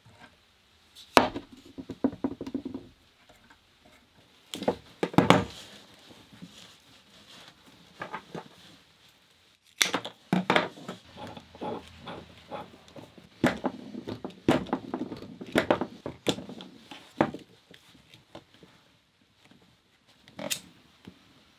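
Hand tools and small metal parts being handled on a wooden tabletop: clusters of sharp clicks, knocks and clatters, separated by quiet gaps.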